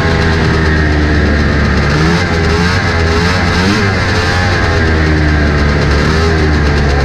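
Vintage 1981 Arctic Cat snowmobile's two-stroke engine running hard at race speed, its pitch swinging up and down as the throttle changes, with other racing sleds' engines close by and steady wind rush.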